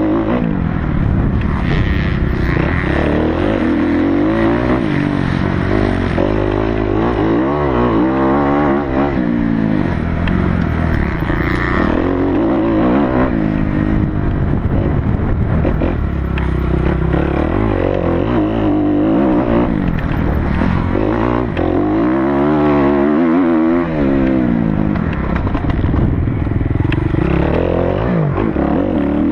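Kawasaki KX250F motocross bike's 250 cc four-stroke single-cylinder engine heard up close while racing. Its pitch rises and falls again and again as the throttle is opened and shut and gears change.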